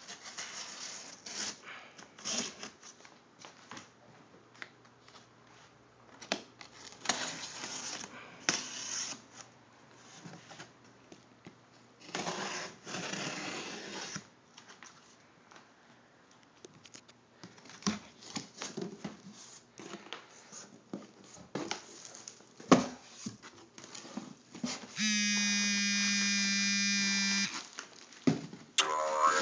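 A cardboard box and its packing being opened by hand: irregular tearing, rustling, crinkling and scraping, with a longer tearing noise about twelve seconds in. Near the end comes a steady buzz that lasts about two and a half seconds.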